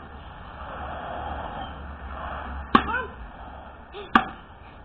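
Axe blade biting into a log: two sharp chops, about a second and a half apart.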